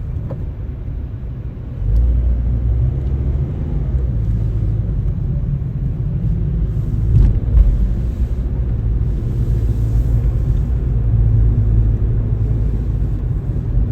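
Steady low rumble of a car on the move, heard from inside; it grows louder about two seconds in.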